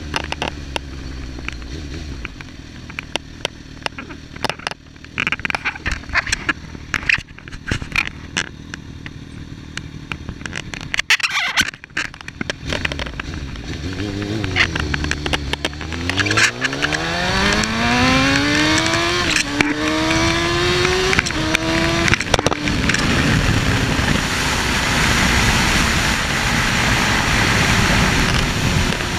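Suzuki GSX-R1000 inline-four sport bike engine heard from the rider's seat: a low steady note with many sharp crackling clicks on the microphone, then from about halfway through it pulls away and revs up in rising pitch through three quick upshifts. Near the end it settles into a steady cruise under a loud rush of wind on the microphone.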